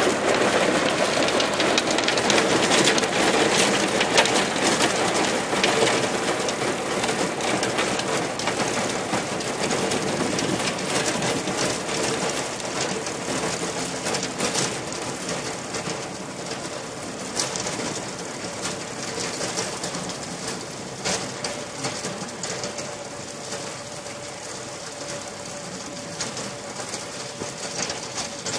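Massey Ferguson 275 tractor driving a rotary tiller through grassy soil: a steady engine and drive whine under the clatter of soil and clods thrown against the tiller. It grows quieter after about twenty seconds as the tractor moves away.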